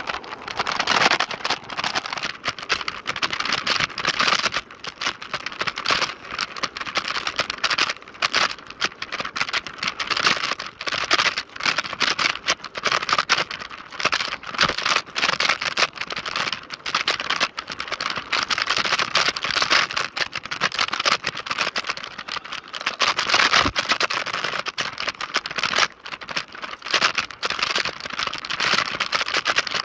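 Lime rental electric scooter rattling over an uneven road surface: a dense, irregular clatter of rapid knocks over steady road noise.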